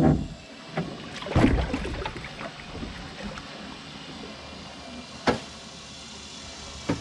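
Aluminum boat moving slowly through a shallow creek: a steady low noise, with a louder knock about a second and a half in and two sharp knocks near the end.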